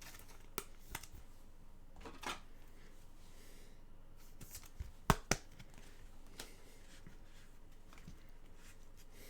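Trading cards being handled and slid against one another: faint rustling with a few short, sharp clicks, the two loudest close together about five seconds in.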